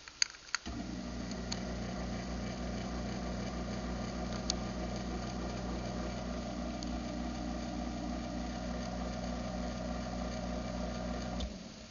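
Craftsman 139.53915DM half-horsepower garage door opener switching on with a couple of clicks, its motor running steadily through an opening cycle for about eleven seconds, then stopping abruptly. The motor is not too loud.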